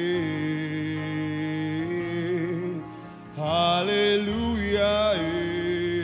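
Male vocalist singing a slow worship song into a microphone over sustained accompaniment. He holds a long note, breaks off briefly about three seconds in, then sings a phrase that moves up and down in pitch.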